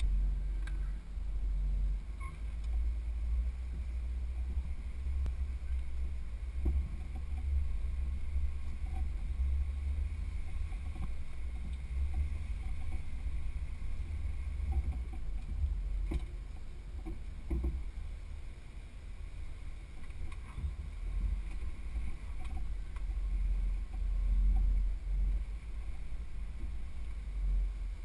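Low, uneven rumble of a Jeep crawling slowly over slickrock, picked up by a camera mounted on the vehicle, with a few short knocks and clunks partway through.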